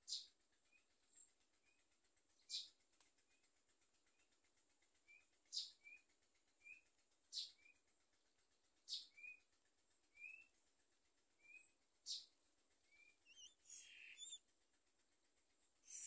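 Common myna nestlings begging in the nest: a run of faint, short rising peeps about every half second or so, with sharper, louder high calls every second and a half to two seconds. A longer, more varied call comes near the end.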